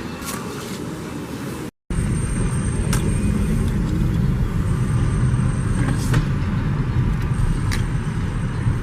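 Steady low rumbling noise of the kind a road vehicle makes. It breaks off for a moment about two seconds in and comes back louder and deeper.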